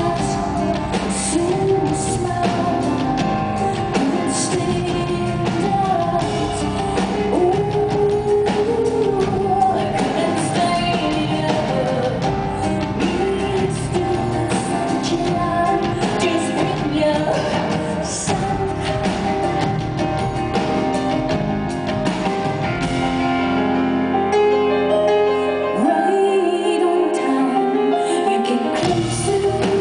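Live rock band performance with a female lead singer over drums and dense band accompaniment. The low end drops away for a couple of seconds near the end before the full band returns.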